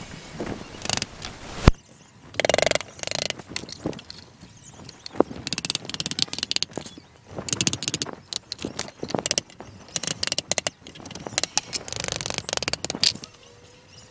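Hand work on a plywood box: irregular short scraping bursts, clicks and a few sharp knocks of a hand tool against the wood.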